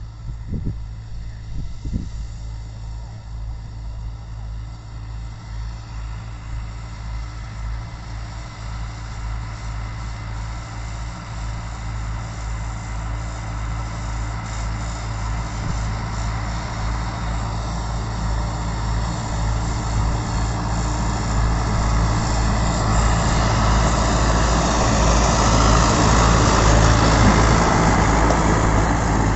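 YTO EF 804 80 hp four-wheel-drive tractor's diesel engine running steadily under load as it pulls a seed drill, growing louder as it comes closer and loudest near the end.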